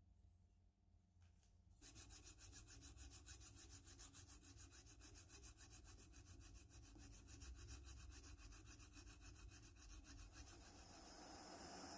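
Hacksaw cutting through a brass lamp's neck, starting about two seconds in and going on in quick, even rasping strokes, several a second. A steady hiss comes up near the end.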